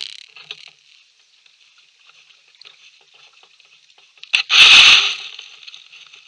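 Kayak hull running aground on a leaf-covered creek bank: one loud scrape and crunch, under a second long, about four and a half seconds in.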